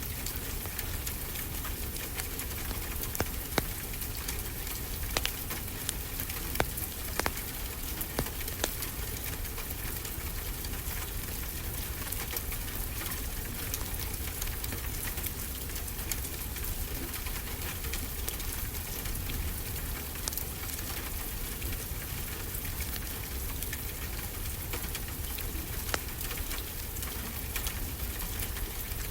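Steady rain with a wood fire crackling, sharp pops scattered through it and bunched in the first third.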